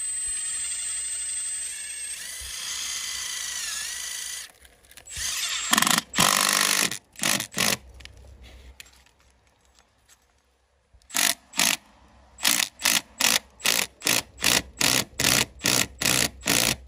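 Cordless impact driver driving a self-drilling screw through a solar flashing plate into the roof. It runs first as a steady high whine for about four seconds, gives a couple of louder bursts around six seconds in, and then goes in short, even bursts, two or three a second, as the screw is seated down onto its rubber washer.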